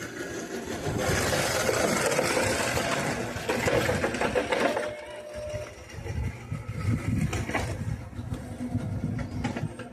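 Small electric motor and drivetrain of a homemade RC car whirring as it drives, rising and falling with the throttle and dropping away briefly about halfway through.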